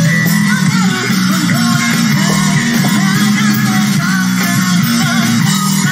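Live rock music from a bass-and-drums duo: an electric bass plays a repeating riff over a drum kit.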